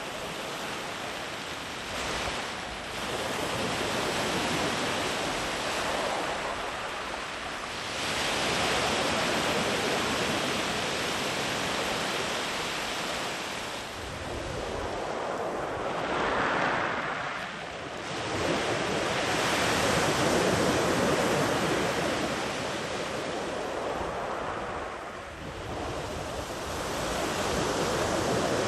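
Sea waves breaking and washing up a sandy beach, the surf swelling and easing in long surges every few seconds, with some wind on the microphone.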